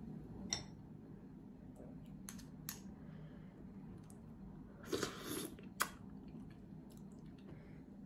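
Shellfish shells being handled: a few sharp clicks, a brief rasping scrape about five seconds in and another click just after, over a low steady background hum.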